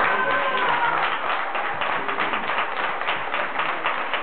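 Spectators applauding with many quick, overlapping claps after a balance beam routine ends. A high voice calls out briefly in the first second.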